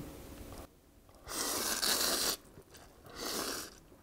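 Ramen noodles in spicy fish-stew broth being slurped from a bowl: two slurps, the first about a second long and the second shorter, near the end.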